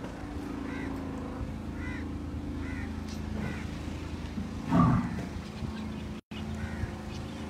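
A cow gives one short, loud bellow about five seconds in, over a steady low hum and a few faint chirps.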